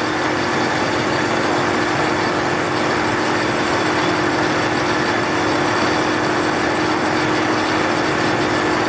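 Pump running steadily, circulating water through a downhole completion-sleeve test fixture to carry a wiper dart through the sleeves: a constant rushing noise with a steady hum underneath.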